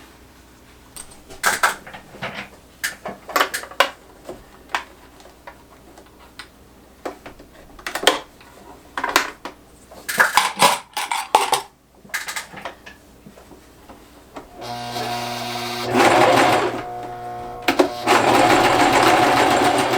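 Scattered clicks, taps and rustles of denim and small tools being handled, then about fifteen seconds in an electric sewing machine starts running steadily, easing off for a moment before it runs on.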